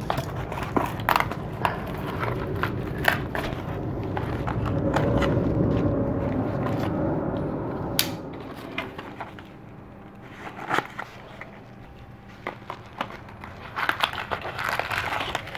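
Packaging being handled while unpacking a flat-pack furniture box: rustling and crackling of cardboard and wrapping with scattered knocks and clicks. The rustling is heaviest a few seconds in, then it turns quieter with only occasional knocks.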